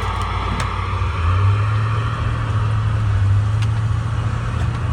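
Heavy pickup truck driving, heard from inside the cab: a steady low engine drone with road noise that swells about a second in as the truck pulls harder.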